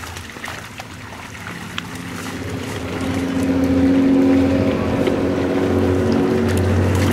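A motor engine running, growing louder over the first few seconds and then holding steady.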